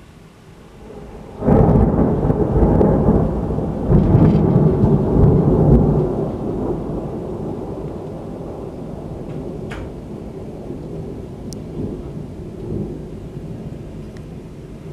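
Thunder: a sudden loud crack about a second and a half in, rolling on with a second surge a few seconds later, then rumbling away slowly. Rain falls throughout.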